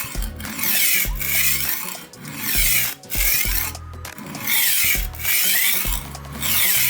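HORL rolling knife sharpener's diamond disc grinding along a steel knife edge as the roller is pushed back and forth, about one gritty rasping stroke a second. The grinding is raising a burr on the back of the edge.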